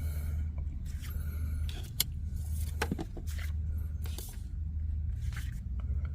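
Rustling, scraping and sharp clicks of trading-card packaging being handled and opened, over a steady low hum.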